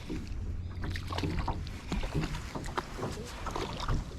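Water lapping and slapping against a small boat's hull, with scattered irregular small splashes and ticks over a steady low rumble.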